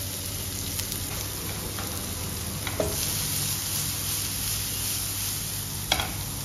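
Freshly added chopped onion sizzling in hot oil with whole spices in a stainless-steel pan. Two brief clicks come through, about halfway and near the end.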